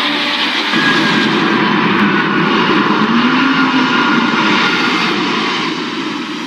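Airbus A380 jet airliner passing low overhead on landing approach: a loud, steady jet engine noise with a low tone that rises and falls near the middle, easing off near the end.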